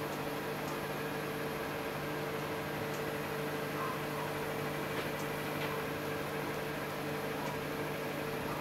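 Steady mechanical hum with a constant hiss, and a few faint ticks a little past the middle.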